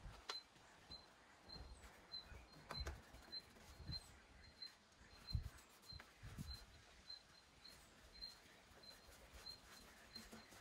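Near silence: a faint short high chirp repeating about twice a second, with a few soft low thumps and clicks.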